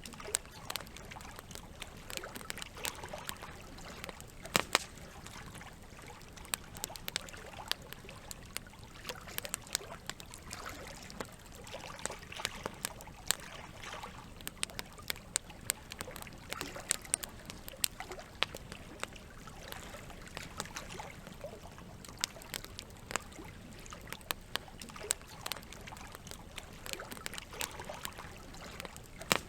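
Campfire crackling with irregular sharp snaps and pops over a steady trickling of running water.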